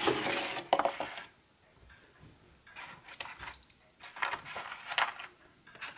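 A paper-pulp egg carton being handled and slid across a stone countertop, giving a few short scraping, rustling noises. The loudest comes in the first second.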